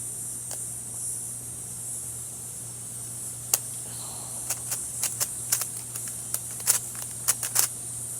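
A new 3x3 puzzle cube being turned by hand: a string of sharp, irregular plastic clicks as the layers turn, starting about three and a half seconds in and coming thickest near the end. The cube is tight, its layers snapping stiffly rather than gliding. A steady low hum and hiss lie underneath.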